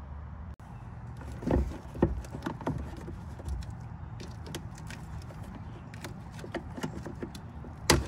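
Scattered plastic clicks and knocks of the VSP speaker box and its wiring connector being handled and pried at to release the connector's latch tab, over a low steady hum, with the sharpest click just before the end.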